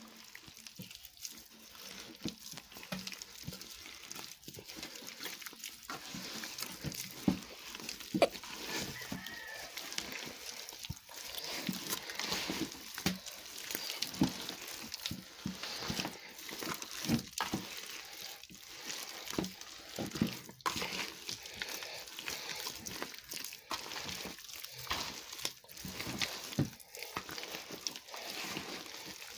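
Hands squeezing and mashing a stiff, wet mix of sugar, lard, butter, eggs and chopped walnuts in a tub: irregular squishing with many small clicks, the lard and butter still firm from the cold.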